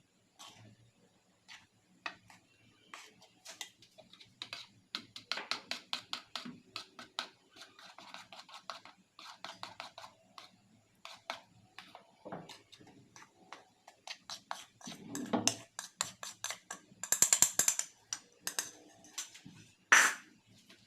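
A utensil beating or stirring in a mixing bowl: rapid clicking and scraping strokes, several a second, with a few louder knocks against the bowl near the end.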